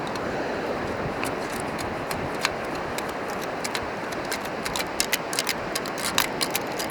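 Steady wash of surf and wind, with a run of sharp clicks and rattles from a few seconds in that grows denser past the middle: sand, shells and grit rattling in a sand scoop as it is shaken to sift out a dug coin.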